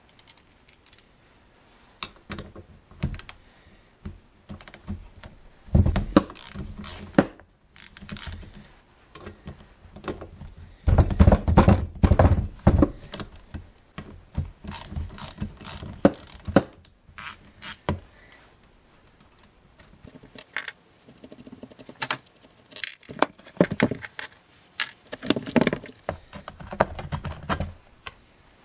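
Metal clicks, clunks and rattles as a wrench works the bar nuts and side cover of a Remington 46cc chainsaw. The knocks come irregularly, with a longer run of louder clatter near the middle.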